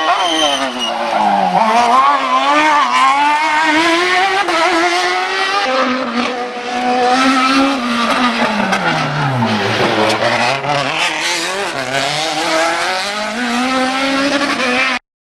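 Racing car engine revving hard, its pitch climbing and dropping again and again with the gear changes and sinking lowest about ten seconds in before rising once more. The sound cuts off suddenly near the end.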